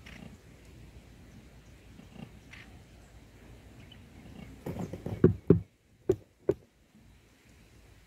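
Rustling and knocking of a woven grass nest, close to the microphone, as the adult bird pushes into it. There is a loud cluster of low rustles and thumps about five seconds in, followed by two sharper single knocks about a second apart.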